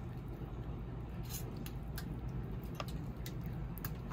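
Curry sauce being squeezed out of a pouch onto vegetables in aluminium foil: soft squelching, with a few short, sharp crackles of the pouch and foil, over a low, steady background rumble.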